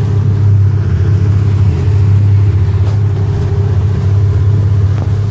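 Motorboat's engine running at a steady pace, a low, even drone heard from on board.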